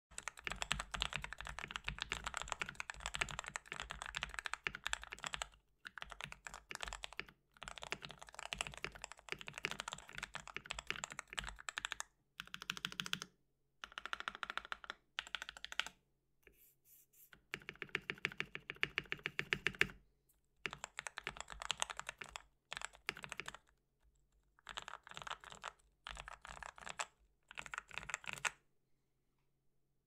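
Mechanical keyboard with lubed Outemu Red linear switches being typed on fast, in bursts of a few seconds separated by short pauses. The keystrokes stop shortly before the end.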